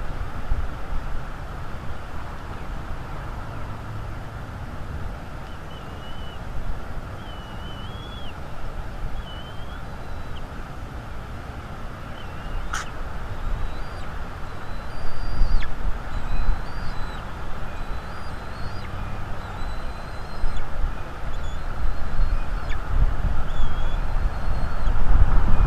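Wind buffeting an outdoor nest camera's microphone, a low rumble that gusts harder toward the end, with faint, repeated short bird chirps in the background and a single sharp click about halfway through.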